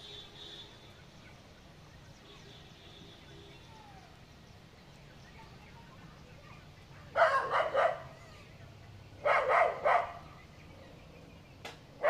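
An animal giving two bursts of short, harsh, rapid calls, three or four in each, about two seconds apart, with a sharp click near the end.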